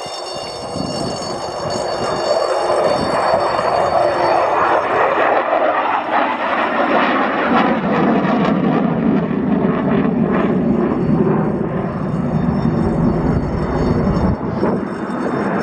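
F-16 fighter jet's engine noise just after takeoff, building over the first few seconds and then holding steady. It deepens to a low rumble in the second half as the jet climbs away.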